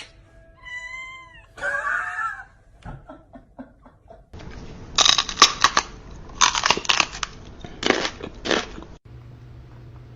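Domestic cat meowing twice, two short calls with a bending pitch, followed by a few seconds of harsh, noisy bursts. It cuts off abruptly into a low steady hum.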